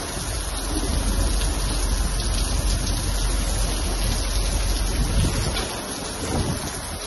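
Steady heavy rain falling, with a low rumble of wind on the microphone; the rumble eases a little near the end.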